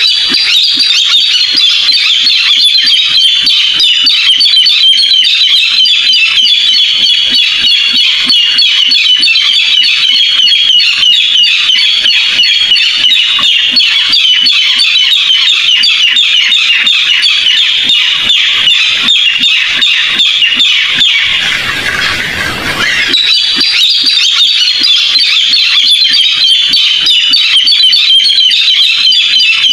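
Barred rail calling: a rapid, unbroken run of high notes, briefly interrupted about 22 seconds in before it starts again.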